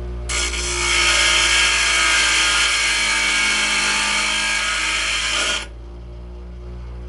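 Bench grinder running with a metal rod held against its wheel: a loud grinding from just after the start to about five and a half seconds in as the rod is trimmed down. After that only the steady hum of the grinder's motor is left.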